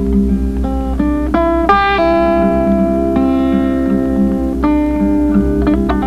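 Instrumental credits music: a melody of separate plucked notes, each struck and fading, over a steady pulsing low bass.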